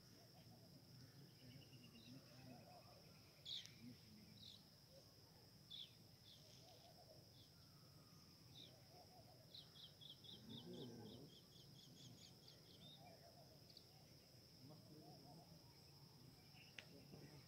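Faint open-field ambience: a steady high insect drone throughout, with scattered bird chirps and, near the middle, a quick run of about a dozen chirps at roughly four a second.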